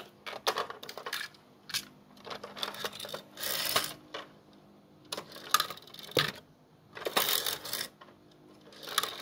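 Toy trucks of die-cast metal and plastic being handled and set down on a table: scattered sharp clicks and clacks as the container trailer is fitted and placed, with a few longer scraping rattles.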